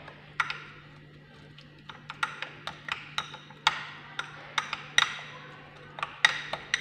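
Metal spoon stirring a thick paste in a small glass bowl, clinking against the glass: a lone clink near the start, then quick irregular clinks at about three a second.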